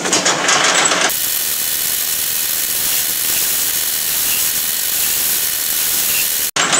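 Metal lathe running with a part turning in its chuck: a steady hiss with a faint whine. The sound starts abruptly about a second in and cuts off suddenly near the end.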